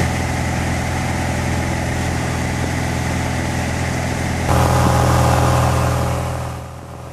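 Steady drone of a Cessna's piston engine and propeller, heard from inside the cabin with a hiss of air over it. It steps up suddenly in loudness about four and a half seconds in, then fades near the end.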